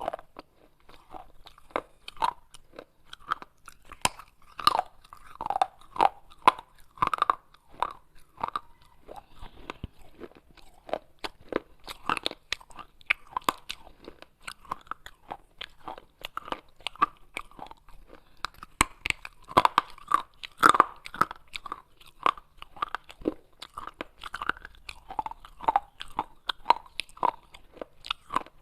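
Pieces of baked clay pot being bitten and chewed close to the microphone: a dense, irregular run of crisp crunches and crackles.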